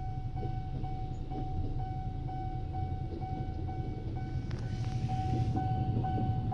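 A running motor: a steady low rumble under a humming tone that pulses about twice a second.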